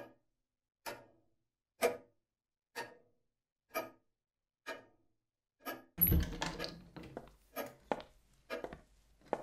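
Clock ticking loudly and evenly, about once a second, each tick trailing off briefly. About six seconds in a low steady room hum comes in under the ticks.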